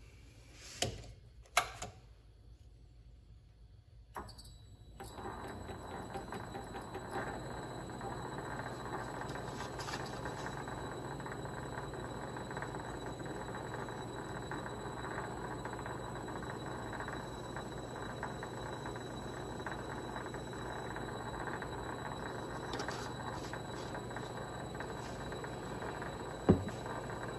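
A couple of light knocks, then from about five seconds in the Vevor MX400 mini lathe runs steadily, spinning the stock while it is coated with layout blue.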